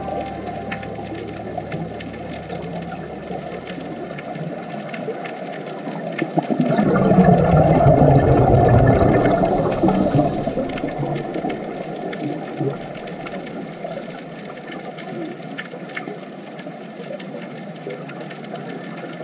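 Underwater ambience: a steady watery hiss with fine crackling, swelling into a louder low rush from about 7 to 10 seconds in, then settling back.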